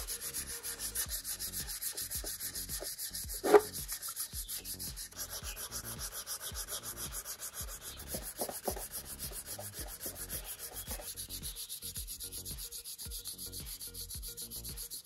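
Sandpaper rubbing over the repaired plastic of a chair in quick, even back-and-forth strokes, smoothing down the mended spot. A sharp knock comes about three and a half seconds in.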